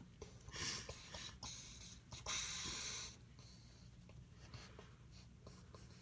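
Pen strokes scratching on paper: two longer strokes, the second about a second long, with lighter ticks between them, over a steady low hum.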